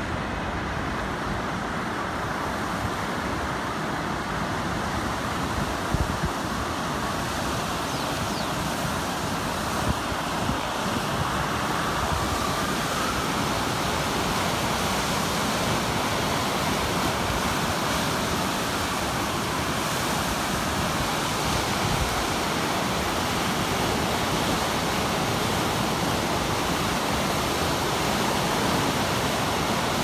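Fast mountain river rushing over rapids: a steady, even roar of churning whitewater, with a couple of light knocks about six and ten seconds in.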